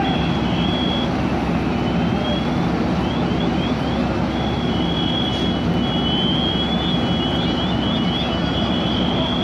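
Fire trucks' engines running steadily at the fireground, a loud continuous drone with a low hum. Short high-pitched rising chirps come in quick runs of three or four over it, with a few longer high tones.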